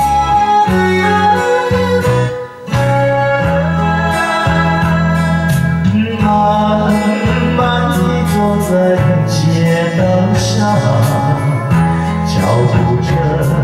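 Karaoke backing music with a man singing a Chinese-language ballad into a microphone over it.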